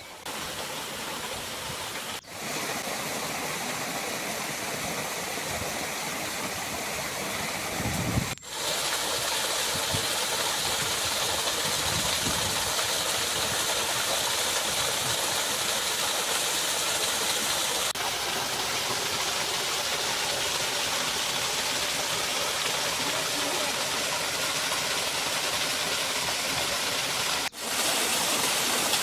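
Steady rush of a fast-running stream and waterfall, dropping out briefly three times and a little louder from about eight seconds in.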